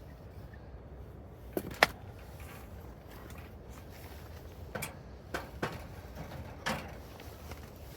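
A handful of short knocks and clunks, two close together about two seconds in being the loudest, then several more spaced out, over a low steady rumble.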